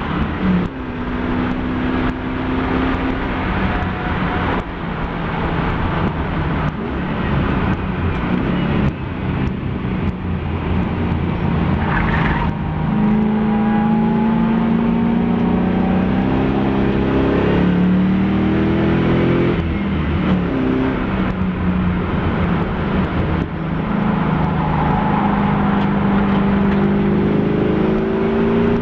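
Fairlady Z race car's engine running hard on track, the pitch climbing under acceleration and dropping back off several times as it lifts and shifts.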